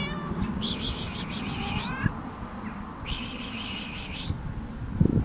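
Domestic cat giving faint, short meows as it comes up close, with two high hissing buzzes of about a second each, one about a second in and one about three seconds in, over low rumble.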